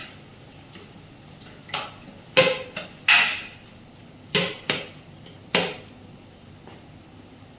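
A metal spoon or ladle knocking against a cooking pot: about seven sharp clanks with brief ringing, spread over a few seconds.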